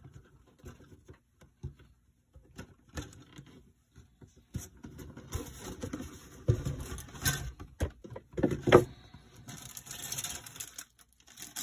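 Cardboard box of a plastic model kit being handled and opened: scattered knocks and scrapes at first, then from about halfway a continuous rustle and crinkle of the bagged parts, with a few louder knocks.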